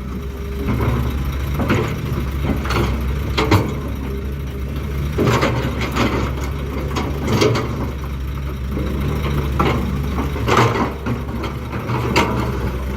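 Heavy diesel machinery engine running steadily, with loose stone knocking and clattering about once every second or two.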